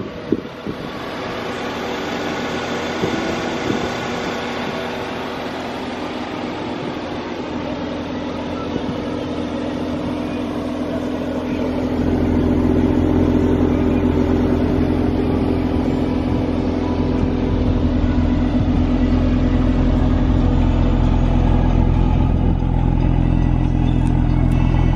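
Mercedes-AMG C 43's twin-turbo V6 idling steadily through its performance exhaust. About halfway through the exhaust note grows louder and deeper.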